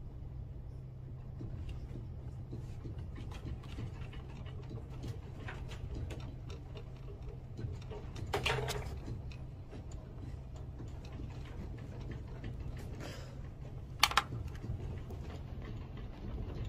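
Office room tone: a steady low electrical hum with faint scattered ticks, and two short clicks, one about halfway and one near the end.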